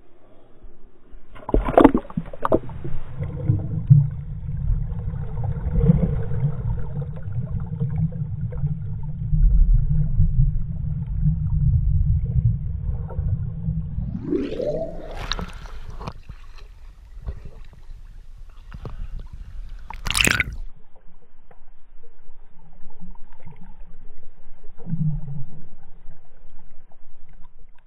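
A child's jump splashes into a lake about two seconds in. Then comes the low, muffled rumble and gurgle of churning water and air bubbles, heard through a camera held underwater. Around the middle there is a rising tone, another sharp splash-like burst comes later, and after that the sound is quieter.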